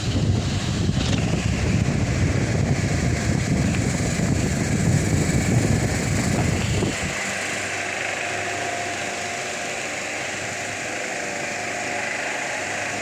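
Delta Gold 50 cm wall fan running. For about the first seven seconds its airflow buffets the microphone with a heavy rumble, then it settles to a steadier whoosh of blades and motor hum.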